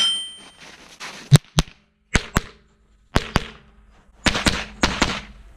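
A rifle string on steel targets: about ten quick shots, mostly in pairs, each followed by the ring of a steel plate being hit.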